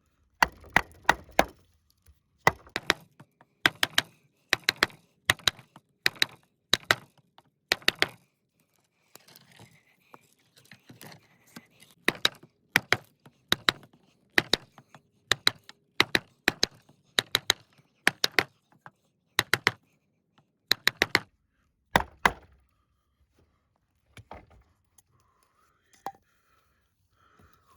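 A large 7.5-inch Bark River Tope Recon knife chopping into wood, with repeated sharp strikes about one to two a second. The strikes pause for a few seconds around the first third. They stop about 22 seconds in, leaving a few faint knocks.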